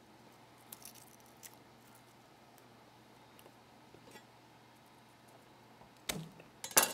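Faint papery crackles of garlic skins being peeled by hand, then two sharp knocks of a chef's knife on a wooden cutting board near the end, the second louder.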